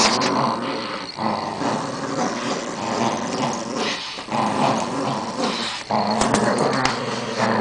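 Two small poodles growling as they tug against each other on a plush toy: a rough, nearly continuous growl broken by a few short pauses.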